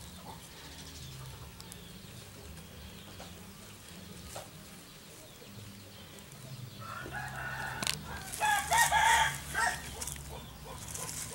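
A rooster crowing once, a call of about three seconds that starts roughly seven seconds in; before it there is only faint outdoor background.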